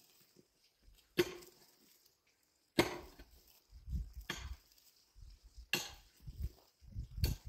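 Wood being chopped by hand: a series of sharp blows, about one every second and a half, each with a dull thud under it.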